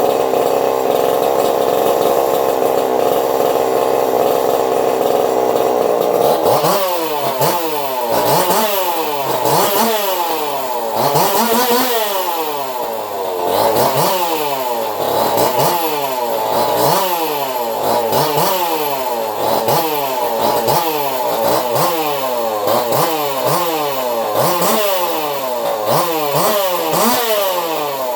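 Custom-built bench-run engine with a swapped crankshaft and piston, running at a steady speed, then from about seven seconds in its speed rising and falling over and over, about once a second.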